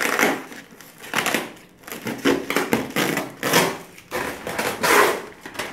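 Brown paper wrapping and tape being torn off a cardboard box, in a series of short ripping bursts about a second apart.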